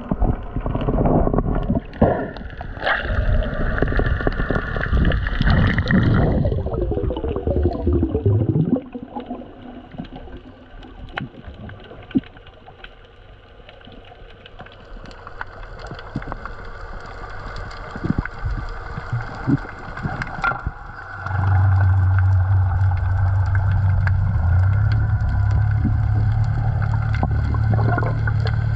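Underwater sound picked up by a diver's camera: water rushing and gurgling past the camera for the first third, then quieter water with scattered small clicks. About two-thirds of the way through, a steady low drone sets in and holds.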